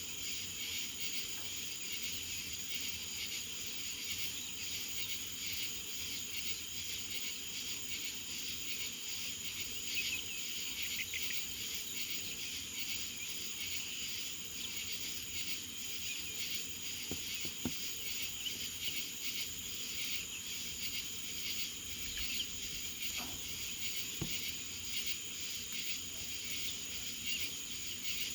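Steady insect chorus: a continuous high-pitched trill with pulsing chirring beneath it, with a few faint knocks in the second half.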